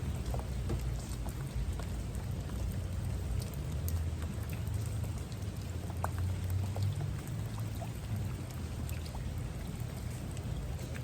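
Steady rain with many individual drops ticking, over a continuous low rumble.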